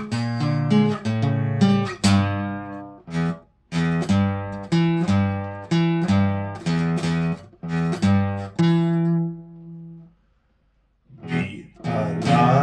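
Acoustic guitar played solo, a run of plucked notes and chords forming a song's intro. It stops briefly about ten seconds in, and then a man starts singing near the end.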